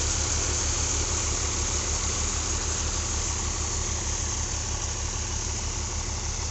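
Diesel tractor engine running steadily with a regular low throb, under a steady rushing hiss from the threshing machine and the chaff it blows out.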